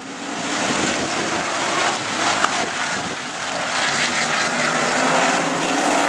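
A pack of Sportsman stock cars racing at speed, the engines of many cars blending into one loud, steady drone. The noise swells over the first second as the pack comes on.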